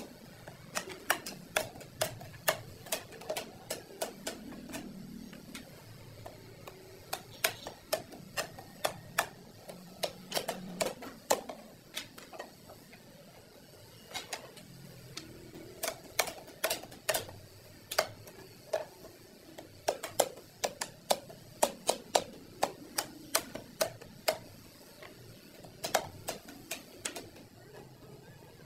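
Hammer driving nails into thin wooden slats, in runs of quick, sharp knocks with short pauses between.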